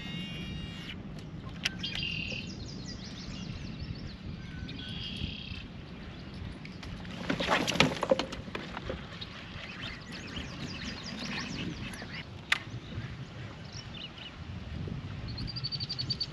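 Songbirds singing in short repeated chirping phrases over a steady low rumble, with a brief louder noisy burst about halfway through and a single sharp click later on.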